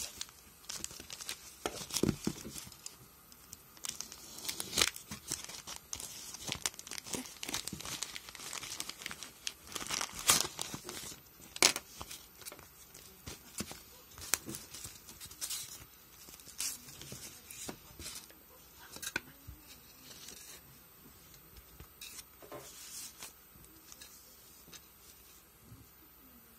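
Plastic mailer package being slit open and torn by hand, then its plastic wrapping crinkled and a foam box handled: irregular rustling, tearing and crackling, busiest in the first half and thinning out near the end.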